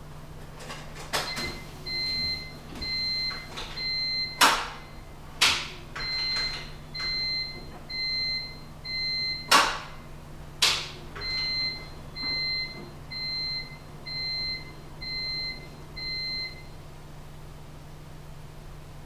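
Repeated electronic beeping, about three short beeps every two seconds, which stops a couple of seconds before the end. Four sharp knocks cut in, louder than the beeps.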